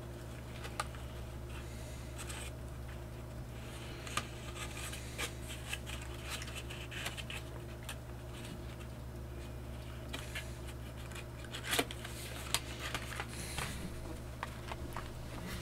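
Scattered light clicks, taps and scrapes of a Blu-ray box set's cardboard box and cases being handled, with one slightly louder knock near the end. A steady low electrical hum runs underneath.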